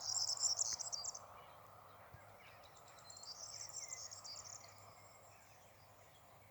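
Insect chirring outdoors: a high, rapid, even trill in two spells, about the first second and again from about two and a half to five seconds in, over a faint steady rush.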